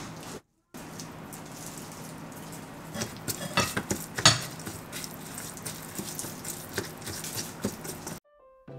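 Kitchen cooking sounds: utensils clicking and tapping against cookware over a steady low hiss.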